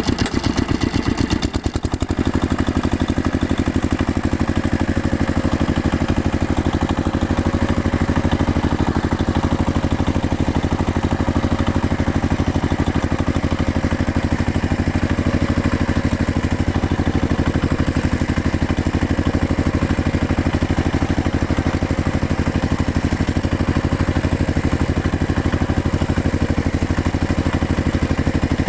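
A machine's engine running steadily with a rapid, even pulse, and a brief dip about a second and a half in.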